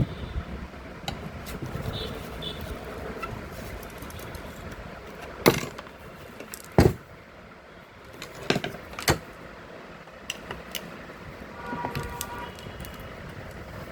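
Scattered sharp clicks and knocks of metal tools and parts being handled during a power-tool teardown, over steady background noise, with a brief faint tone about twelve seconds in.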